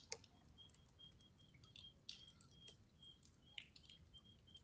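Near silence with faint, short high chirps repeating two or three times a second, and scattered light ticks of raindrops.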